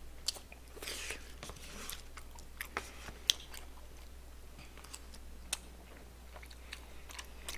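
A man chewing mouthfuls of chewy tteokbokki rice cakes close to the microphone, with soft mouth smacks and scattered small clicks.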